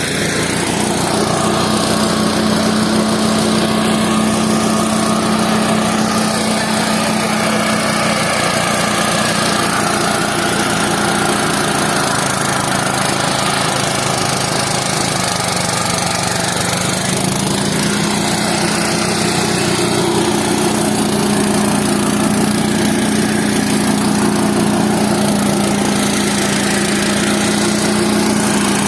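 Small engine of a rice-harvesting machine running steadily. Its speed dips slightly about halfway through, then picks back up.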